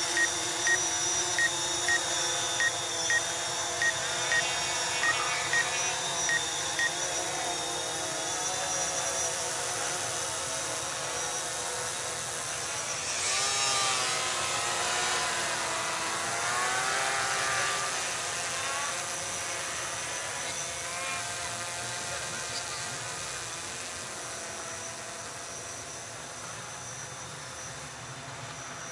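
Quadcopter drone hovering with a steady multi-tone motor whine, its pitch wavering for a few seconds midway as it moves. Over the first seven seconds its remote controller gives a short high beep about twice a second, a warning whose cause the pilot doesn't know.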